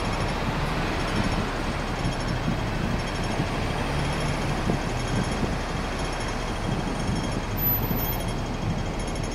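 Steady city street traffic: vehicle engines running and tyre noise at an even level, with no single event standing out.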